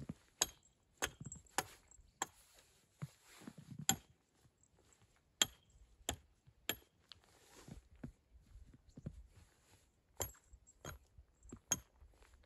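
A series of sharp knocks in short runs, about two a second, with pauses between the runs.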